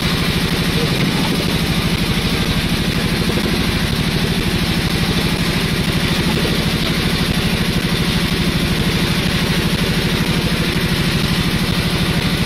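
Boat engine running steadily at idle, a low, even, fast pulsing hum.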